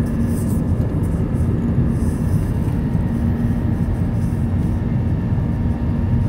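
Steady cabin noise of a passenger airplane in flight: a loud, even low rumble of engines and airflow with a constant hum.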